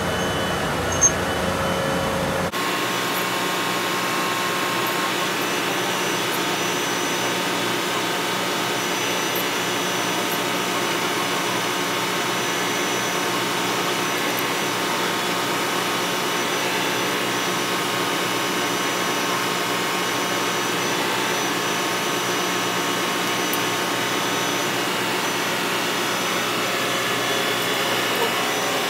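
Steady, unbroken drone of ship engine-room machinery, with a single sharp clank about a second in.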